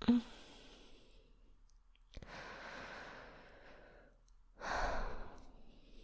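A woman's breathing close to the microphone: a short vocal sound at the very start, a long soft breath about two seconds in, then a louder sigh about four and a half seconds in.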